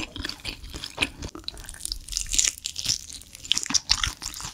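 Close-miked crunching and chewing of sauce-coated fried chicken: irregular crisp crackles and wet chewing sounds.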